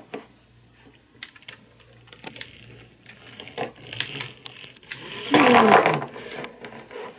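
Small vinyl figures clicking and knocking against a tabletop while a plastic toy vehicle is pushed among them, in scattered light taps. About five seconds in, a short falling vocal sound.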